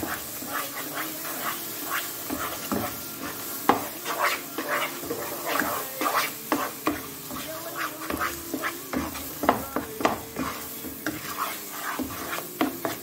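A wooden spatula scrapes and stirs a thick moong dal paste frying in ghee around a nonstick pan, with a light sizzle. The strokes come in quick, irregular scrapes.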